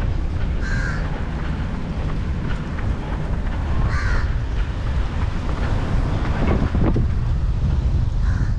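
Short bird calls, about a second in, at about four seconds and again near the end, over a steady rush of wind on the microphone.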